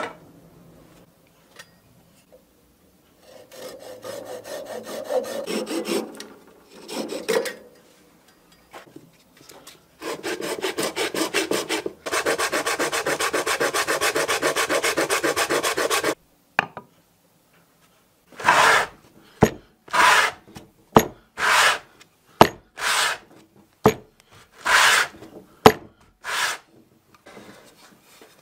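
A turned wooden bowl rubbed by hand against abrasive, a dry scraping of wood. First comes a run of fast, even strokes for several seconds, then about ten slower, separate strokes as the bowl's base is pushed back and forth over a sanding sheet on a board.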